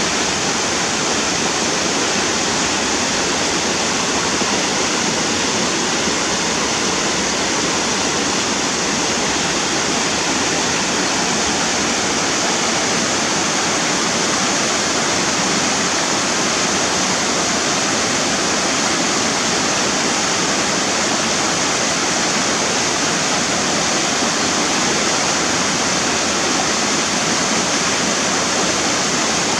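Fast-flowing mountain river rushing over rocks, a steady loud wash of water.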